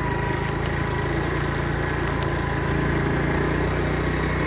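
An engine running steadily at an even, low pitch, a constant hum with a faint steady whine above it.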